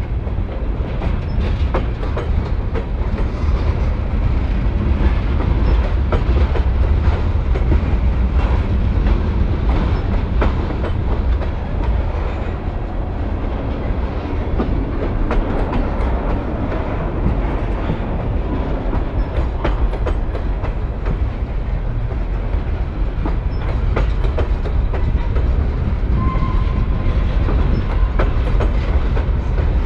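Freight train rolling steadily past, a continuous heavy rumble with its cars clicking and clattering over the rail joints.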